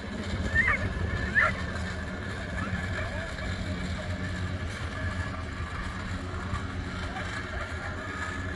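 A motor running steadily with a low, even hum. About half a second and about one and a half seconds in come two short, high dog yelps, the loudest sounds here.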